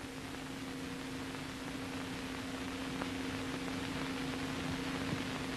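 Steady hum and hiss of an old film soundtrack, with a couple of faint clicks and no other sound.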